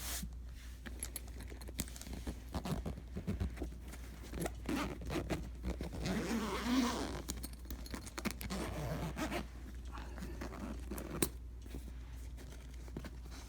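Packaging being opened and handled by hand: zipper-like scraping, rustling and scattered clicks and knocks, busiest about halfway through, over a steady low hum.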